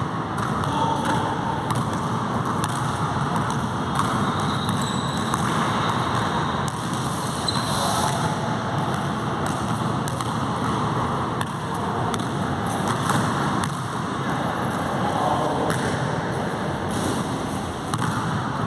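Basketball bouncing now and then on an indoor court's floor, over a steady background noise.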